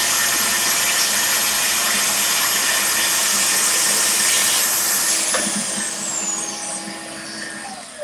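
DeWalt track saw cutting along its rail through a door, with a Milwaukee shop vacuum pulling dust from the saw's port. About five seconds in the saw is let off and winds down with a falling whine while the vacuum keeps running; right at the end the vacuum is switched off and begins to wind down.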